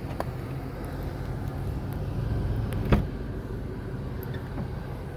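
2002 Chevrolet Tahoe's V8 engine idling with a steady low hum, with one sharp click about three seconds in.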